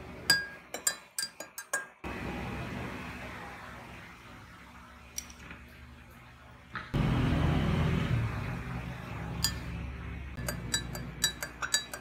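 Metal spoon clinking against a drinking glass while stirring chia seeds into water. There is a quick run of clinks in the first two seconds and another run over the last few seconds, with a steady low background sound in between.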